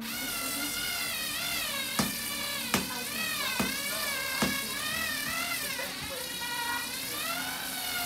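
Aerospeed 20-inch box fan running, a steady rush of air with a wavering whine, with four sharp clicks a little under a second apart near the middle.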